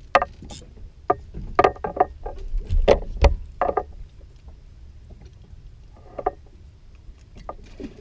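Irregular knocks and clatters of fishing tackle in a small open boat as a fish is reeled up and lifted out of the water, most of them in the first four seconds, over a steady low rumble of wind and water.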